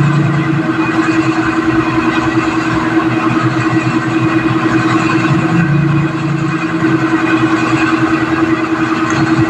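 A motor running steadily at a constant speed, with an even hum throughout.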